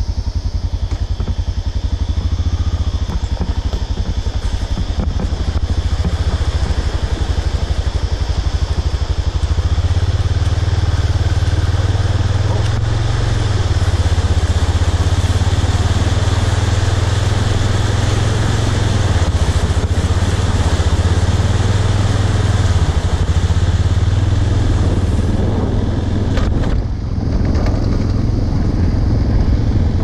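Honda Dominator NX650's single-cylinder four-stroke engine running as the bike rides at low speed, getting louder about ten seconds in as it pulls harder, then briefly dropping off a few seconds before the end before picking up again.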